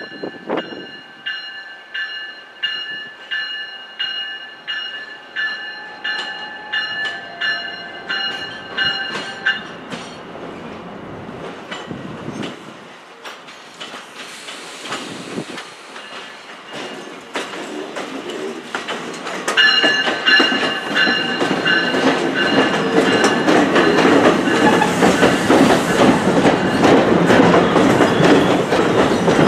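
A bell rings in a steady rhythm, about once every 0.7 seconds, and stops about ten seconds in. From about twenty seconds in, a multilevel passenger train passes close by with a loud rumble and rapid clickety-clack of wheels over rail joints, and the bell rings again over it.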